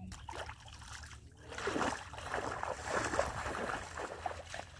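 Footsteps wading through shallow water: a run of irregular splashes and sloshes, loudest in the middle and fading near the end.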